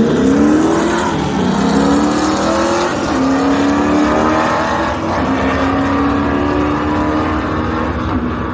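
A drag-racing car's engine under full acceleration. The pitch climbs and drops back twice in the first three seconds, as at gear shifts, then holds nearly steady.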